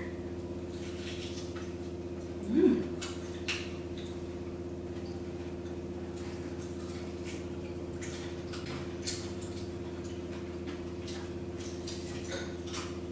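Someone chewing and gnawing on chicken, with scattered small wet clicks and crunches and an occasional light tap of tableware, over a steady electrical hum.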